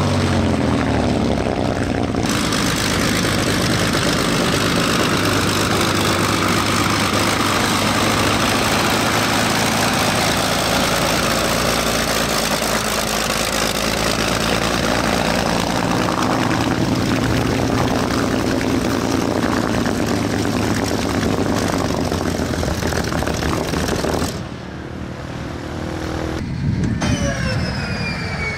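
Messerschmitt Bf 109's piston engine running loud and steady. Near the end, a whine that falls in pitch, typical of the fighter's inertia starter spinning down as it engages to crank the engine.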